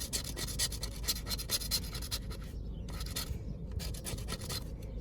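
A scratch-off lottery ticket being scratched: quick, rapid scraping strokes rubbing off the coating, pausing briefly twice.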